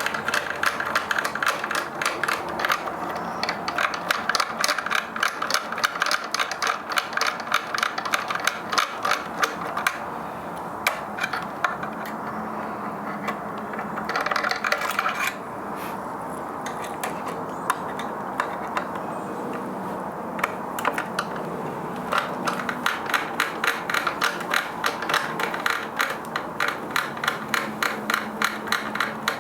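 Long Phillips screwdriver turning out screws inside a coffee grinder's case, making rapid, regular clicking that thins out about halfway through and picks up again near the end.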